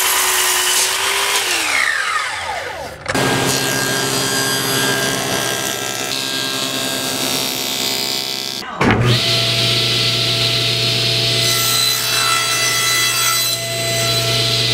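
Woodworking power tools running and cutting wood, in three separate passages that change abruptly about three seconds in and again near nine seconds. The first has a motor whine that rises and falls in pitch; the other two run steadily.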